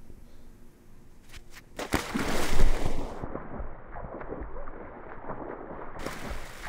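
A body plunging into water with a loud splash about two seconds in. The sound then goes muffled, with underwater bubbling and churning, and about a second before the end it opens back up to water splashing and churning at the surface.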